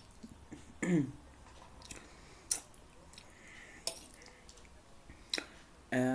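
Eating sounds: chewing, with sharp clicks of metal cutlery against a plate about every second and a half. A short hummed voice sound comes near the end.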